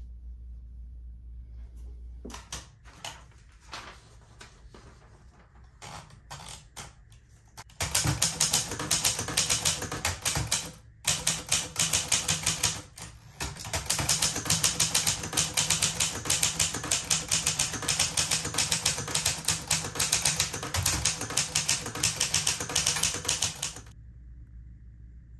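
Vintage manual typewriter: a few scattered key strikes and clicks at first, then from about eight seconds in fast, continuous typing with two short pauses, stopping shortly before the end.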